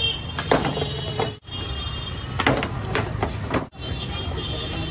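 Several sharp scrapes and knocks of a spatula against a pan of omelette mixture, over a steady low rumble.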